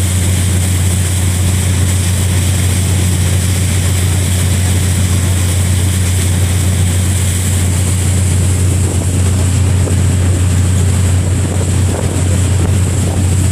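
Steady low drone of a ferry's engines underway, with an even rush of wind and water over it.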